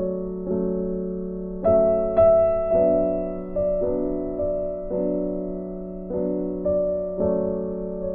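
Slow instrumental background music: struck notes, a new one about every half second, each fading away, over a steady low held note.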